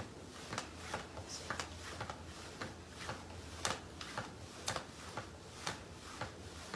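Niceday mini stepper clicking in a steady rhythm as its pedals are worked up and down, a sharper click about once a second with lighter ticks between.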